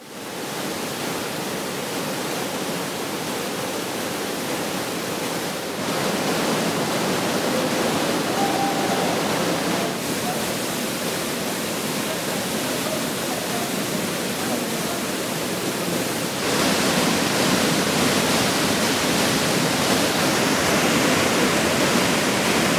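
Waterfall pouring down a cliff face in a steady rush of water, getting louder and hissier about two-thirds of the way through.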